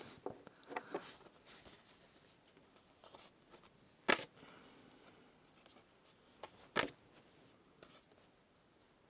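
Stiff cardstock cards being handled and laid down on a table: faint rustling, with two sharp taps, one about four seconds in and one near seven seconds in.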